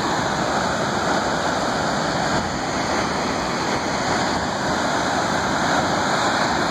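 Firehole Falls, a waterfall on the Firehole River, with its rapids below: a loud, steady rush of falling and churning whitewater.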